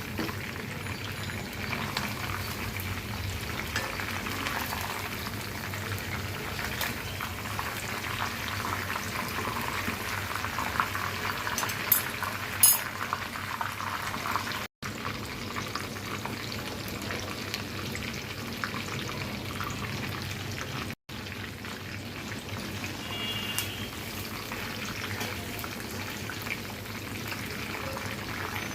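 Whole chicken deep-frying in hot oil in a kadai: steady sizzling and bubbling with fine crackles as it browns to a crisp finish. A couple of sharp clicks stand out about halfway through.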